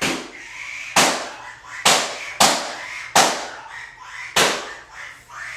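A string of six sharp firecracker-like bangs, irregularly spaced about half a second to a second apart, each fading quickly: the exploding donut going off.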